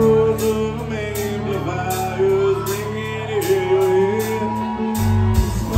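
Live band music: a man singing a slow melody over strummed acoustic guitar and electric guitar, with sustained low notes and a steady beat.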